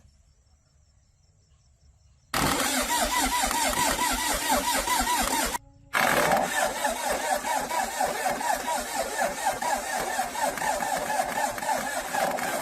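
Single-cylinder ZS1115 diesel engine running with a steady, rhythmic beat. It cuts in suddenly after about two seconds of near quiet and drops out briefly near the middle.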